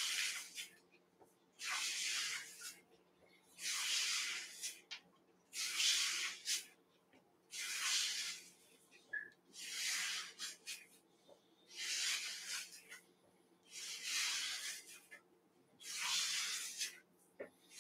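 A foot rubbing on the floor as the heel draws slow circles: a soft swishing rub about every two seconds.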